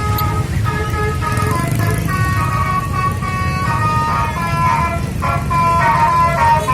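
A jingle-like melody of held electronic notes, changing every half second or so, played from a parade vehicle over a steady low engine rumble.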